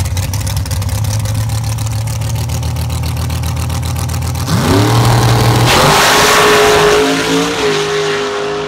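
Drag car's engine idling with a lumpy, pulsing beat on the starting line, then revving up a little over four seconds in and launching with a loud burst at about five and a half seconds. The engine note then holds steady, stepping in pitch near the end, and fades as the car pulls away down the strip.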